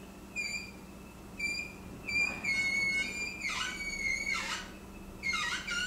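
Tight cotton patches on a cleaning-rod jag squeaking as they are pushed through the rifled barrel of a .40 calibre air rifle. There is a string of short high squeaks, a longer one about two seconds in, and a wavering one near the end.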